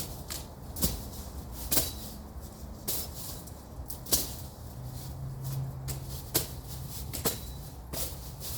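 Machete strokes slashing through brush and small branches: sharp cutting strikes at an uneven pace of roughly one a second, with rustling of the cut growth between them.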